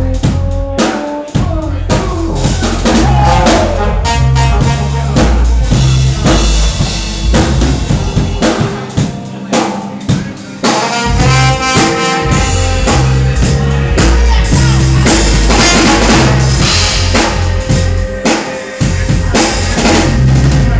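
Live band playing an up-tempo groove, with a full drum kit (kick, snare and rimshots) under pitched instrument lines.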